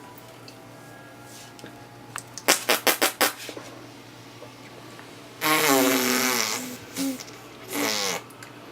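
A person making silly mouth noises: a quick run of about six sharp pops, then a loud, fart-like buzzing noise with wavering pitch lasting about a second, followed by two shorter ones.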